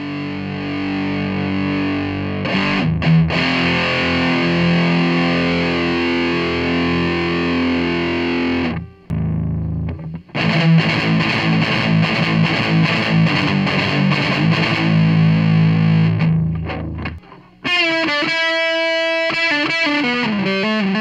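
SG electric guitar played through a breadboarded single-transistor (2N5088) distortion circuit with 1N4148 diodes clipping in the feedback loop, heard through a mic'd small bass amp: held distorted chords, a short break about halfway through, then faster picked chugging riffs, and after a second short break some single notes stepping down in pitch.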